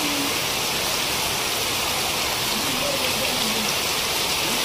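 Heavy rain pouring steadily onto a waterlogged road: a dense, even hiss of falling and splashing rain.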